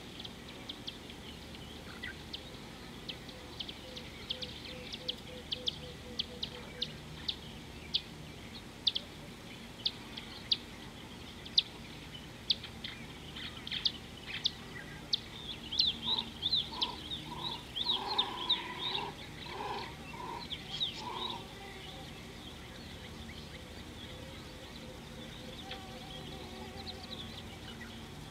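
Wild birds calling: a long run of short, sharp, high chirps, joined a little past halfway by a lower call repeated about eight times in quick succession.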